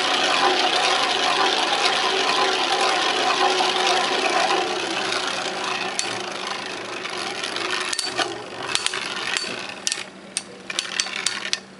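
Two metal-and-plastic Beyblade spinning tops, Big Bang Pegasis and Scythe Kronos, spinning in a plastic stadium, with a loud rattling whir as the stadium shakes. The rattle fades gradually, and from about eight seconds in it turns into a run of sharp clacks as the tops knock together.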